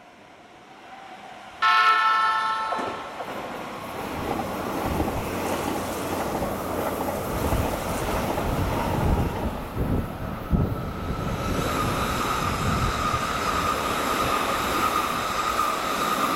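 An electric train's horn sounds once, about a second and a half in, for about a second. Then commuter trains pass close by at speed: a continuous rumble with heavy wheel thumps over the rail joints, and a steady high whine joining in during the second half.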